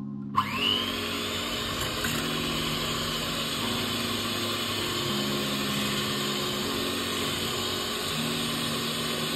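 Electric kitchen mixer switched on, its motor whining up to speed in under a second and then running steadily at high speed.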